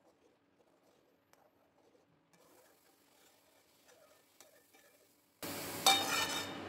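Near silence with faint light ticks and scrapes as a spoon stirs milk in an iron kadhai. About five seconds in a steady hiss comes in suddenly, with one brief, sharp, ringing knock just after it.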